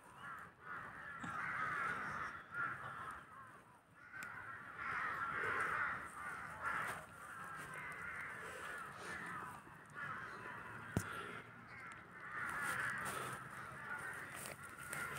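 A flock of birds calling over one another in a continuous chorus that swells and fades in waves, with one sharp click about eleven seconds in.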